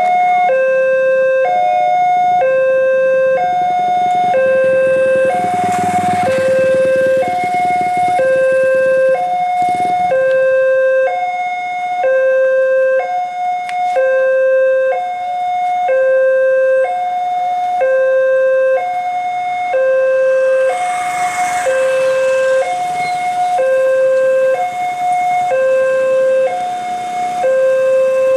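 Railway level-crossing warning alarm sounding steadily, alternating between a lower and a higher tone about every second: the signal that a train is approaching and the crossing is closed. A broad rushing noise swells briefly twice over it.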